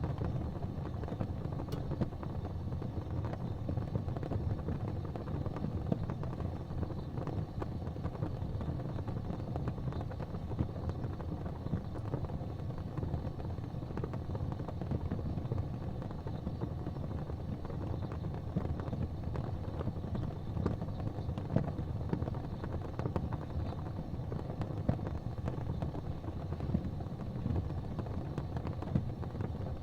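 Gas fireplace flames burning with a steady low rumble, with faint small ticks scattered through it.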